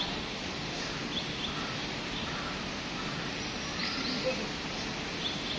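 Outdoor background ambience: a steady hiss of distant noise with a few faint, short bird chirps scattered through it.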